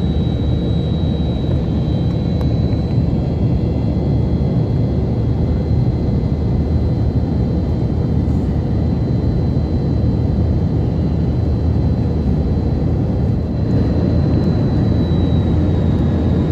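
Tupolev Tu-134's Soloviev D-30 turbofan engines running at steady high power: a dense low rumble with a thin, steady high-pitched whistle above it.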